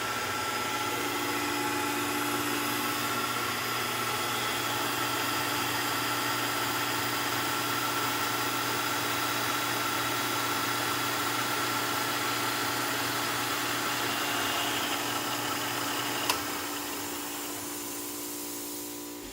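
Emco Maximat V10 lathe/mill running steadily with a 6-inch grinding stone spinning in its spindle, a steady hum and hiss. A sharp click comes near the end, after which the machine winds down and stops.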